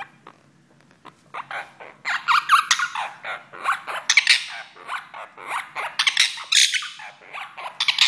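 Monk parakeet calling in a rapid, harsh run of squawks, starting about a second and a half in.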